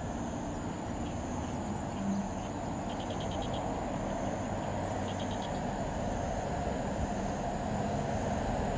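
Kyoto Tango Railway KTR001 'Tango Explorer' diesel railcar approaching, a low rumble that slowly grows louder. Over it, insects keep up a steady high buzz, and two short runs of rapid clicking calls come about 3 and 5 seconds in.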